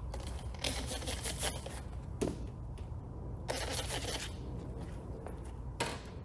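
Hand trigger spray bottle spritzing soapy water slip solution onto the film and paint. The spritzes come in quick runs of several about a second in and again around four seconds, with single ones in between.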